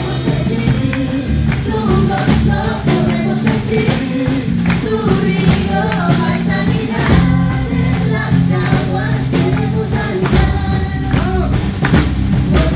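Gospel music with singing, a steady beat and tambourine.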